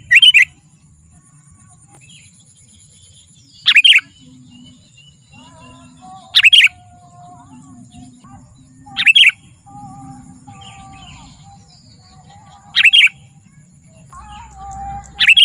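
Sooty-headed bulbul (kutilang) giving short, loud calls, one about every three seconds, the first one doubled. Fainter bird calls sound between them.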